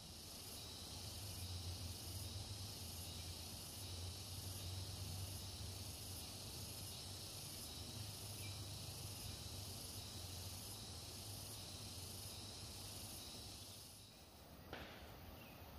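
Steady high-pitched insect chorus of the forest, over a low hum. The chorus drops away about fourteen seconds in, and a single faint knock follows.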